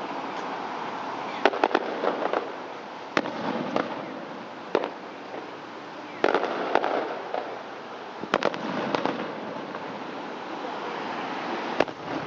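Fireworks display: aerial shells bursting in sharp, irregular bangs, several in quick succession, some followed by a spell of crackling.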